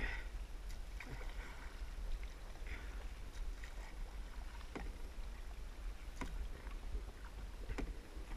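Kayak paddle strokes in calm river water: the blade dips and splashes, with drips and scattered light clicks and knocks of the paddle, over a steady low rumble on the microphone.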